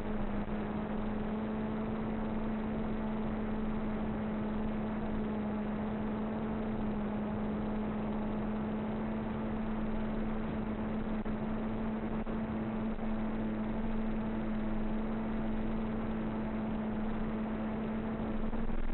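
A motor running steadily at one unchanging pitch, a constant drone, over an even rushing noise.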